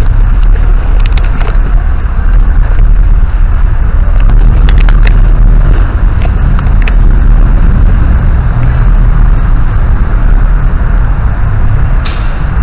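Heavy low rumble on the microphone of a player-worn camera, with scattered faint sharp clicks of airsoft guns firing in the distance.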